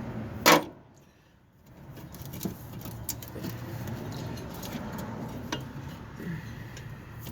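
Metal parts and hand tools being handled: a sharp metallic knock about half a second in, then scattered light clinks.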